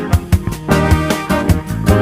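Upbeat background music with a steady drum beat and pitched instruments.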